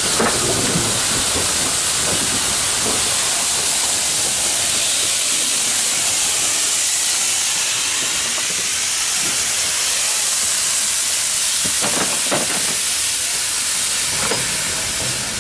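Express steam locomotive 03 1010, a three-cylinder DR class 03.10, venting steam with a loud, steady hiss from its open cylinder drain cocks.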